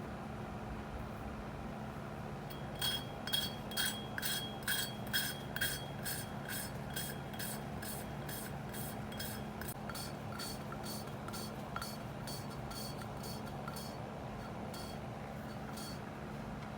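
Rhythmic hand rubbing or scraping strokes on a metal engine part, about two to three a second, strongest at first and then lighter, over a steady low hum.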